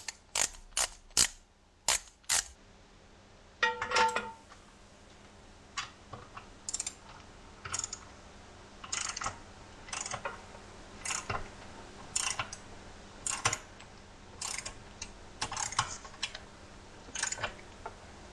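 A 3/8-inch drive click-type torque wrench, set to 18 ft-lb, being worked bolt by bolt around a three-piece wheel's assembly bolts. It gives short bursts of metallic ratchet clicks roughly once a second. A few sharp clicks come at the start and a louder metal clack about four seconds in.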